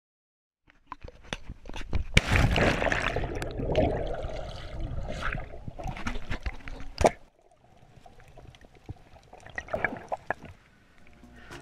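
Water sloshing and splashing close around an action camera held at the surface, ending in one sharp splash just past the middle. The rest is quieter and muffled, with a few faint clicks: the camera is under the water.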